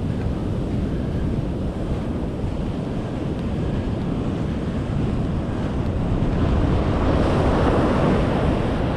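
Ocean surf breaking and washing up the beach, with wind buffeting the microphone. The rush of the surf swells louder for a couple of seconds about two-thirds of the way through.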